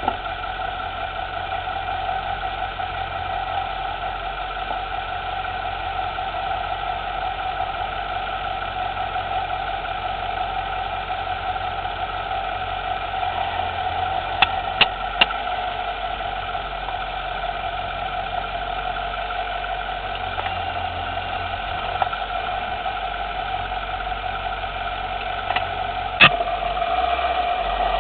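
2010 Lexus LS 460L's 4.6-litre V8 idling with a steady hum, over which the suspension gives sharp clicks: three in quick succession about halfway through, then a few single ones, the loudest near the end. The owner asks whether the clicking comes from an outer tie rod, the sway bar or a steering knuckle.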